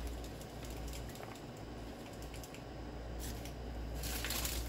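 A lidded glass jar of herbs, honey and vinegar shaken by hand: liquid sloshing with a fast run of small clicks and knocks, and a short hiss near the end.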